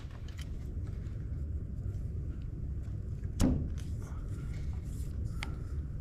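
Hands working a length of PEX tubing into a brass SharkBite push-fit tee, with one sharp knock about three and a half seconds in and a few faint ticks over a steady low rumble.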